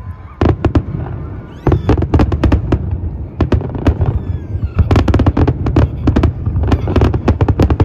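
Aerial fireworks display: shells bursting in rapid volleys of bangs and crackles, many reports a second, growing into a dense barrage about two seconds in.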